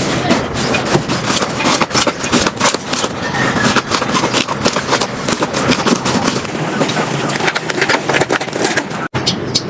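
Slime being squeezed, pressed and stretched by hand, giving a dense run of crackling, popping clicks and squelches. It cuts off abruptly about nine seconds in and starts again with another clip.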